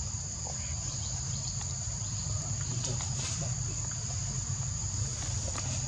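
Steady high-pitched drone of forest insects, unbroken throughout, over a low steady rumble.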